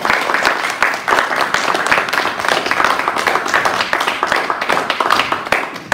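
A congregation applauding, many hands clapping together steadily.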